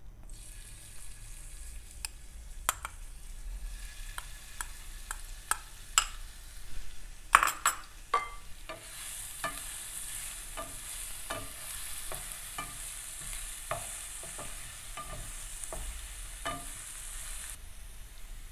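Ginger-garlic paste sizzling in hot oil in a nonstick frying pan, with a spoon and a wooden spatula knocking and scraping against the pan as it is stirred. A burst of clatter comes about seven seconds in. The sizzle grows louder about nine seconds in and drops shortly before the end.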